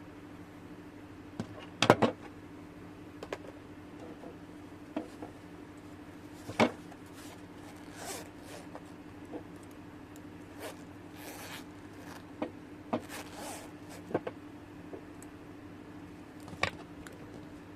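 Scattered sharp clicks, taps and short scrapes from handling small objects, the loudest cluster about two seconds in, over a steady low hum.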